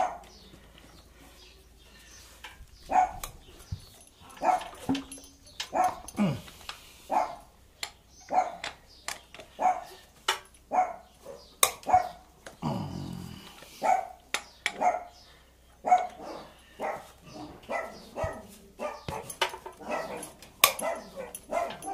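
A dog barking over and over, about one to two barks a second, starting about three seconds in, with sharp clicks in between.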